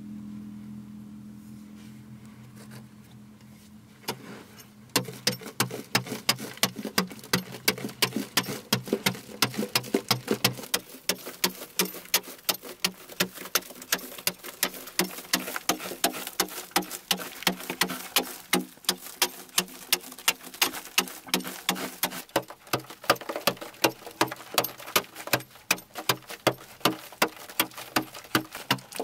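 A wooden-handled digging tool chopping into a packed-earth cave wall in quick, regular strikes, two to three a second. The strikes start about five seconds in, after a low hum fades out.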